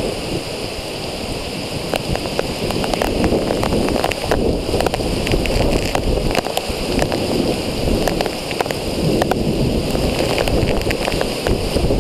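Storm winds of about 50 mph driving heavy rain through the trees, the gusts buffeting the microphone in a loud, rough rush. Scattered sharp ticks come through it from about two seconds in.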